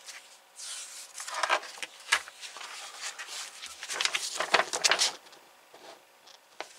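Magazine pages being handled and turned by gloved hands: paper rustling and crinkling in bursts, loudest about four to five seconds in.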